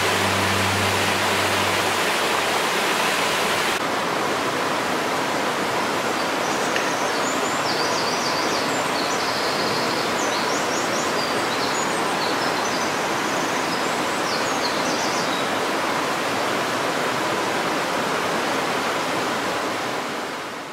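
Steady rush of a mountain stream cascading over rocks. A few short high chirps come through it in the middle, and the sound fades out at the end.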